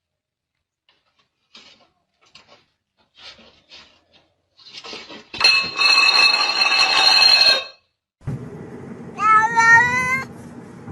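Domestic cat sounds: a loud, sustained sound lasting about two seconds around the middle, then near the end a cat's meow that rises and falls in pitch.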